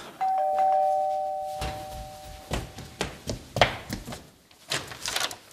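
Two-tone ding-dong doorbell chime, a higher note then a lower one, fading out over about two seconds. It is followed by a series of short steps and clicks, ending with the door handle being worked as the front door is opened.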